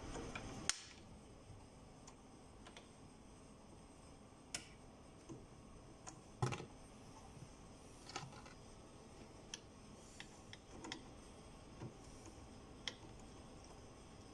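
Faint, irregular small clicks and taps of hand tools and burs being handled at the motor spindles of a Sirona inLab MC XL milling unit. There are about a dozen, with one sharper click about halfway through.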